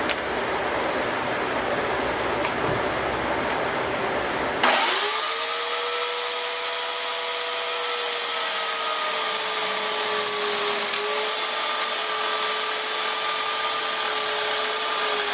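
A fan hums steadily, then about five seconds in an electric chainsaw starts abruptly and runs at a steady high whine, ripping lengthwise into a thick wooden block, its pitch sagging slightly now and then as the chain bites.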